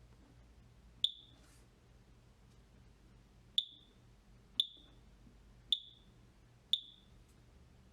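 Short high-pitched keypad beeps from a Macurco DVP-120 gas detection control panel, one per button press while a relay field is set. There are five beeps: one about a second in, then four about a second apart.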